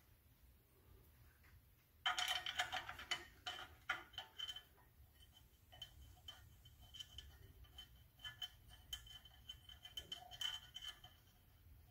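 Light metallic clicking and rattling from clutch pressure-plate bolts being fitted by hand. A dense run of clicks starts about two seconds in and lasts a few seconds, then scattered lighter ticks follow.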